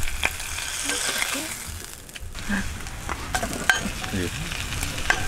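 Slices of meat sizzling in a stainless steel frying pan, a steady hiss broken by sharp clicks of metal utensils against pan and bowl.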